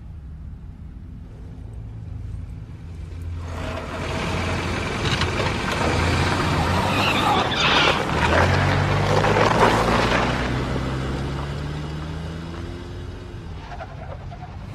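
Truck engine running as the vehicle drives up and passes close by, with a rush of road noise that swells to its loudest about eight to ten seconds in. The engine note then rises as it pulls away and fades.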